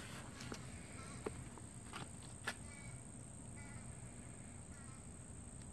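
Faint, steady, high-pitched insect chorus, with a few soft clicks and rustles from hands handling the bird and the netting.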